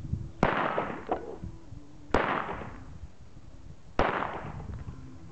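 Three shots from a .45 ACP Glock pistol, about a second and three quarters apart, each trailing off in an echo.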